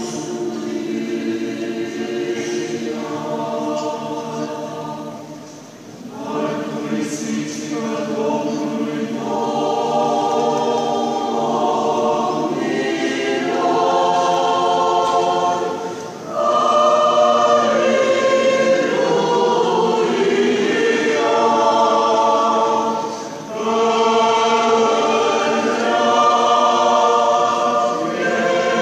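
Orthodox church choir of mixed men's and women's voices singing a cappella in sustained chords. The phrases are broken by short pauses about six, sixteen and twenty-three seconds in.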